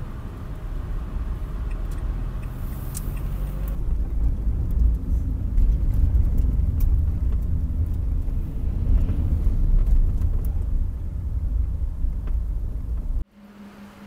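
A car driving, a steady low rumble of engine and road noise that grows a little over the first few seconds and cuts off abruptly about a second before the end.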